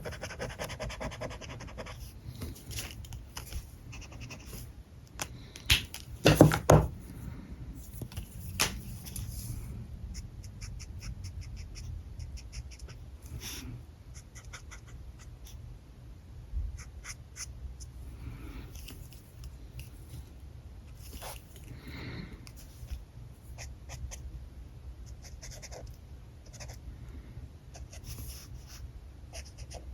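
Alcohol markers working on paper: scattered short scratchy strokes and small clicks of handling, with a louder clatter about six to seven seconds in.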